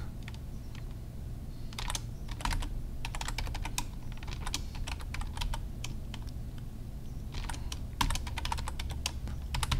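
Typing on a computer keyboard: quick runs of key clicks with pauses between them, over a steady low hum.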